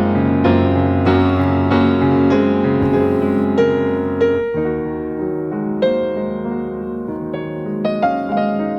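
Soft background piano music: sustained chords with single notes picked out over them, changing chord about halfway through.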